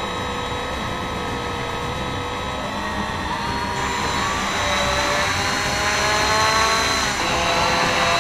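Electric motor and propeller of a radio-control model Pilatus PC-6 Turbo Porter running, a steady whine that rises in pitch and gets louder from about four seconds in as the throttle is opened.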